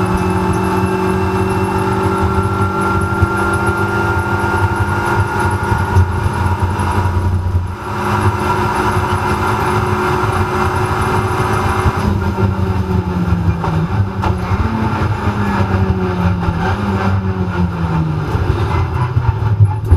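Renault Clio Cup race car's turbocharged four-cylinder engine heard from inside the cockpit, running hard at steady revs, with a brief dip about eight seconds in. Near the end its pitch jumps up and down several times.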